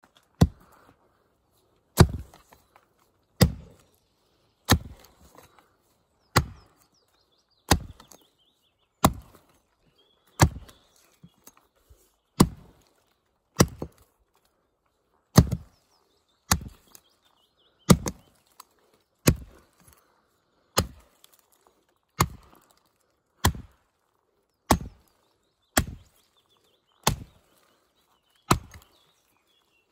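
Tuatahi axe chopping into a round of wood: about twenty sharp, even blows, one every second and a half or so, each a crisp knock with a short ring.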